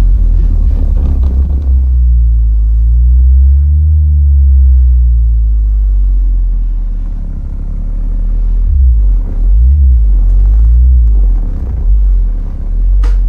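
Four Kicker L7 square 12-inch subwoofers in a sealed quad box, driven hard by a DS18 FRP-3.5K 3500-watt mini amplifier, playing a bass test track. Deep bass notes glide up and down, then beat in short pulses, pushing the subs to their limits. A brief clatter near the end as something shaken loose falls off a shelf.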